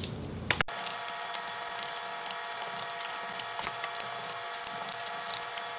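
A pentalobe screwdriver turning out the tiny bottom-case screws of a mid-2014 MacBook Pro: many small irregular clicks and scrapes of the bit in the screw heads and against the aluminium case, over a steady faint high hum.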